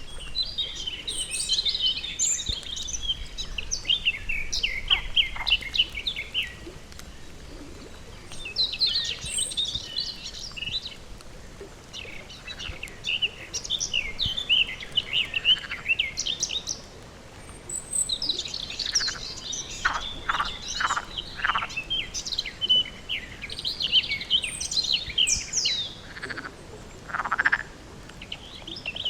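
Frogs croaking in a pond, in bouts of rapid pulsed calls that overlap one another, with short lulls about a third and about halfway through.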